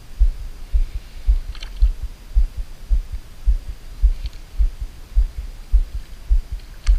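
Dull, low thumps at about two a second: handling knocks picked up by the body-worn camera as the angler cranks the spinning reel and works the rod. A few faint clicks sound over them.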